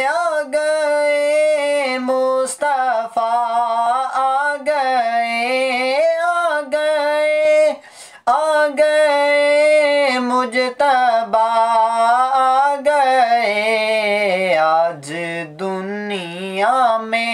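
A man's solo voice singing a naat, a devotional song in praise of the Prophet Muhammad, unaccompanied. He holds long notes that slide and waver in pitch, with a short breath-break near the middle.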